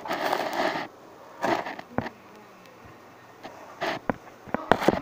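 Phone handling noise: fingers rubbing and brushing over the microphone in several bursts, with a few sharp knocks and clicks as the phone is moved and propped up.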